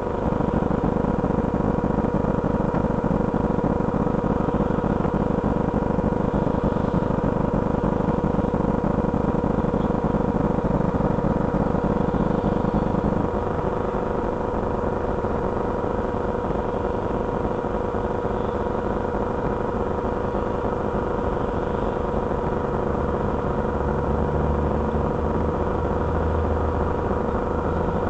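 Road traffic: cars driving past, one drawing closer with a low engine note in the last few seconds. Underneath is heavy rumbling noise with a steady high hum.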